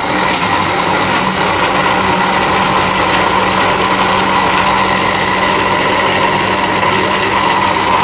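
Electric countertop blender running at a steady speed, blending cucumber, mint and water into a smooth liquid.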